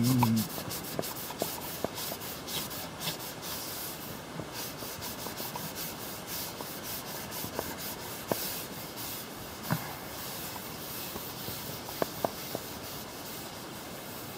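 Hand scrubbing a dirty shelf surface clean: a steady rubbing, broken by a few small knocks and clicks.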